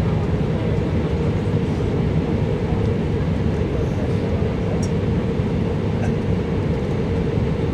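Steady cabin noise inside an airliner taxiing after landing: engine hum and low rumble from the ground roll, with a steady drone.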